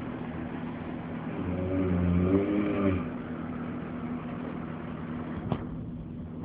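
A man snoring: one loud, long snore about a second and a half in, its pitch arching up and back down, over a steady low drone. A single sharp click near the end.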